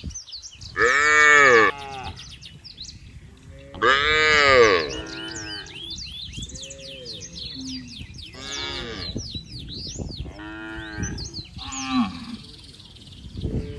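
Cattle mooing: two loud moos about one and four seconds in, each rising then falling in pitch, followed by several quieter, shorter moos. Small birds chirp in the background throughout.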